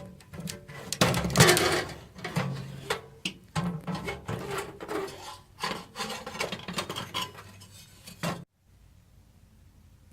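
Metal parts of a gas water heater's burner and pilot assembly scraping, rubbing and clicking as they are handled and disconnected, the loudest scrape about a second in. The sound cuts off abruptly near the end.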